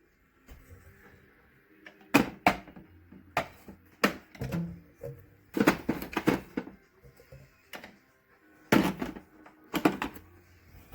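Irregular sharp knocks and clicks of hard objects being handled, about a dozen, in a few clusters.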